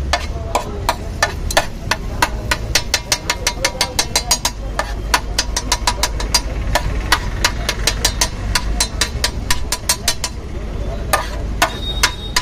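Metal ladle knocking and scraping on a large flat griddle as dabeli masala is scooped up: quick, sharp clinks a few per second, over a low, steady traffic rumble.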